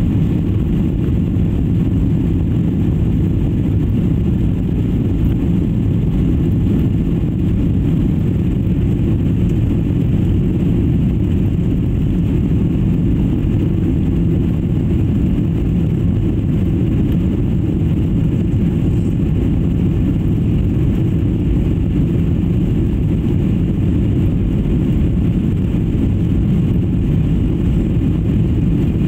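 Steady low rumble of a jet airliner's engines and rushing air, heard inside the passenger cabin.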